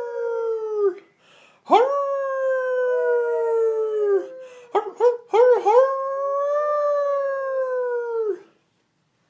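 A toddler howling like an animal: three long, drawn-out howls, each sliding down in pitch at its end, with a few short yelps between the second and third.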